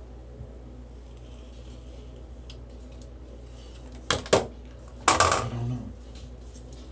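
Hard objects being handled and set down: two sharp clicks about four seconds in, then a louder clatter with a short metallic ring a second later, over a steady low hum.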